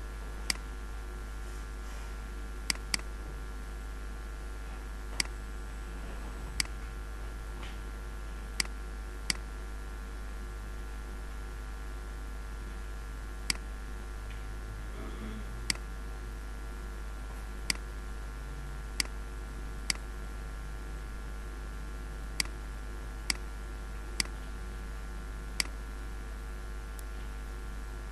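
Computer mouse clicking: sharp single clicks at irregular intervals, about sixteen in all, with a quick double-click near the start, over a steady low mains hum.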